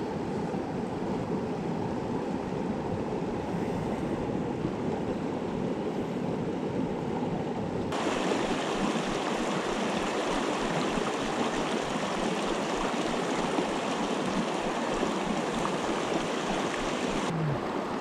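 Fast, shallow rocky river rushing and splashing over stones in a steady, unbroken flow. About eight seconds in the sound turns brighter and hissier.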